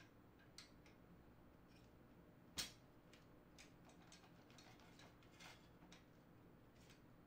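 Near silence broken by faint clicks and taps as hands handle an electronic kick-drum pad and its isolation board, with one sharper click about two and a half seconds in.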